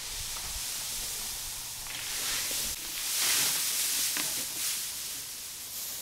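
Dry loose hay rustling as it is forked and pitched off the wagon by hand, swelling to its loudest around the middle.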